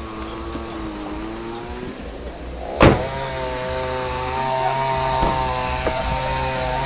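An engine running, its pitch wavering for the first two seconds; a sharp knock about three seconds in, after which the engine runs louder at a steady pitch.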